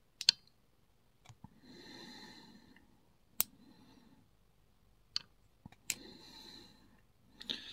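A few sharp metal clicks as a hand tool works at the circlip on the back of a lock cylinder, with two long breaths out between them.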